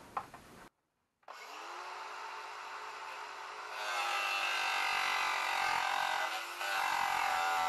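Angle grinder spinning up about a second in, then grinding the steel of an old ATV exhaust. From about four seconds in it gets louder and harsher as the disc bites the metal, with a short let-up before it bites again.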